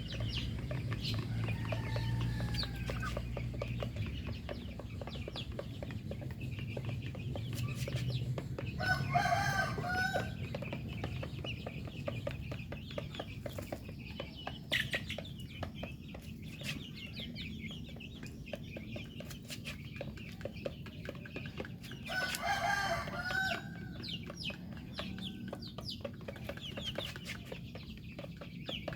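Domestic chickens clucking steadily, with a rooster crowing twice: once about nine seconds in and again about twenty-two seconds in.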